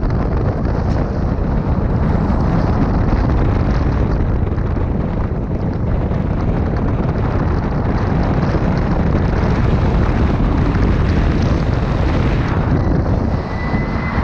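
A rally car being driven on a wet gravel course, heard from an outside-mounted camera: a heavy rush of wind over the microphone, with engine and tyre noise underneath. The rush eases slightly near the end.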